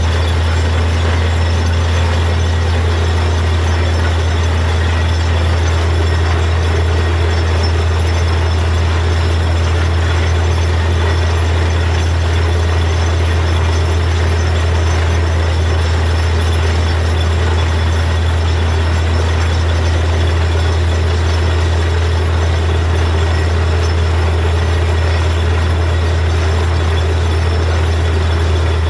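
Truck-mounted borewell drilling rig running steadily: a constant low, heavy drone, with an even rushing hiss of water and cuttings being blown up out of the borehole.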